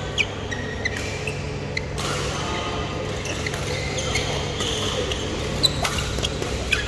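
Badminton rally in a large indoor hall: sharp racket-on-shuttlecock hits at irregular intervals, with short squeaks of shoes on the court floor, over a steady low hum of the hall.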